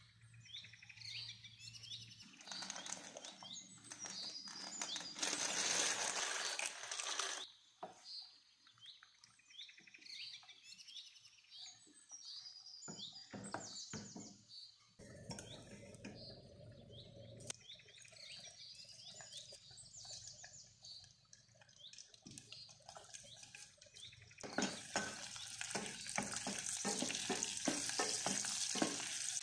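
Water running into a steel pot, then a wooden spoon stirring penne in boiling water. From about 24 seconds in, butter sizzles and crackles as it melts and is stirred in a saucepan, the loudest part of the stretch. Birds chirp in the background through much of it.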